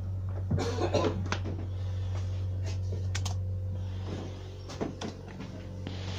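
Scattered light clicks and knocks of handling the camera and gear, over a steady low hum. There is a short hiss about a second in.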